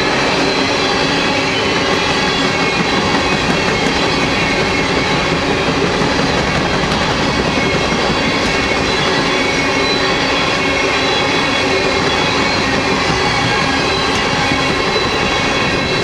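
Norfolk Southern coal hopper cars rolling past at close range: a loud, steady rumble of wheels on rail with several high, steady ringing tones over it.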